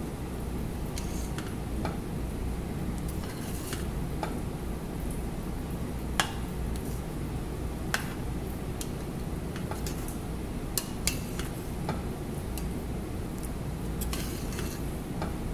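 A metal slotted spoon stirs a pot of minced jute-leaf (molokhia) stew, clinking now and then against the pot, about a dozen irregular clicks. A steady low hum runs under it.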